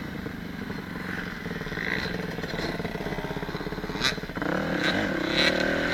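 Dirt bike engine running at steady low throttle, its firing pulses even. A sharp knock comes about four seconds in, after which the engine picks up and runs louder.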